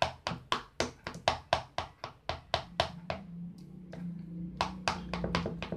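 Spoon tapping and pressing against a bowl while mashing bananas: quick, regular taps about four a second for the first three seconds, then slower, scattered taps.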